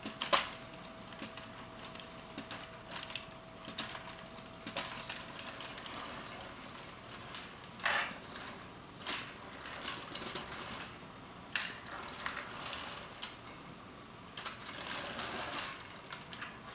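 Plastic Lego Technic-style helicopter model being handled: scattered clicks and short rattles of its plastic parts and gear mechanisms.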